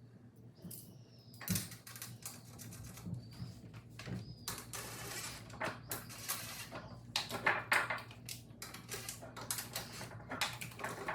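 Rapid, irregular clicking and metal knocks of hand tools and bolts as mounting arms are fastened to a steel step rail, with a few short high chirps in the first few seconds.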